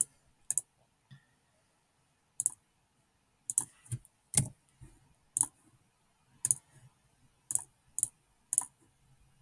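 Computer mouse clicking about ten times at uneven intervals, short sharp clicks with quiet gaps between them.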